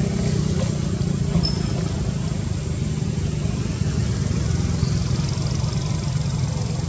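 A steady low rumble, strongest in the bass, with no clear beat or change.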